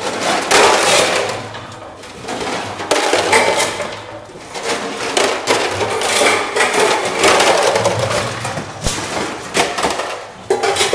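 Industrial can presser crushing empty tin cans: a steady motor hum under irregular surges of metallic crunching and clattering as flattened cans drop out of the chute onto the floor.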